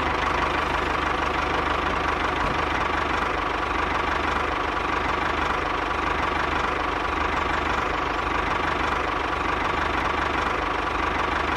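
A tractor engine running steadily with an even, low knocking chug.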